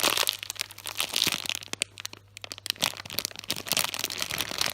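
Plastic packaging crinkling and crackling in bursts as a squishy toy is handled and taken out of its bag, busier in the first half.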